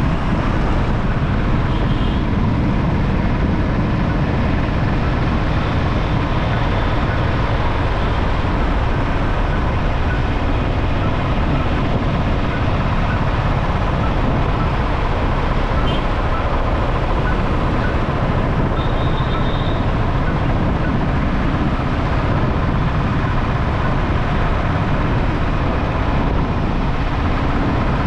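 Loud, steady road noise of a motorcycle ride through city traffic: engine, tyres and surrounding vehicles blend into one even rumble, with a few brief faint high tones.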